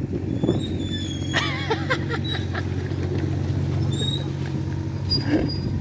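Small backhoe's engine running steadily while it works, with a few short high squeaks about a second and a half in.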